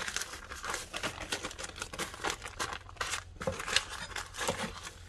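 Parchment paper crinkling and rustling as hands press and pinch shut a soft, floured log of rolled dough, in many short irregular crackles.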